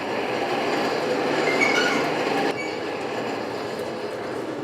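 Coal forge fire under blast, a steady rushing noise of air and burning fire. It drops a little about two and a half seconds in.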